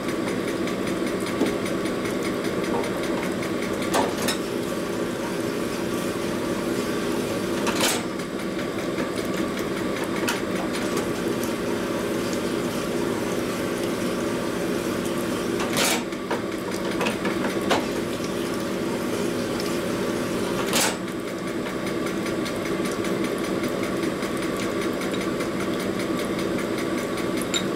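Honing machine motor running steadily while 1965 Panhead rocker arm bores are sized on its spinning mandrel, with four sharp clacks spread through it.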